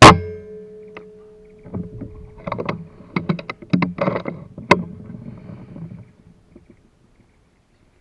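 A single air rifle shot: a sharp crack with a ringing tone that fades over about two seconds. It is followed by a few seconds of irregular knocks and rustling that die away about six seconds in.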